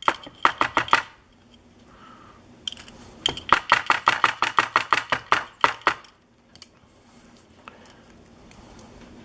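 Rapid runs of small metallic clicks and taps from a pin-tumbler lock being taken apart by hand: a short run of about six, then a longer run at about five clicks a second, as the pins and springs are worked out of their chambers.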